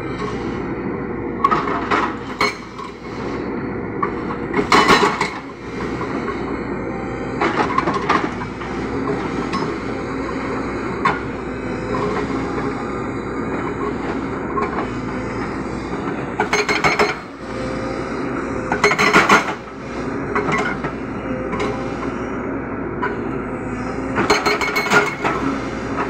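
Hydraulic rock breaker on a JCB 220 excavator hammering rock, a steady fast pounding over the engine's drone. Louder, sharp metallic clanks break through several times.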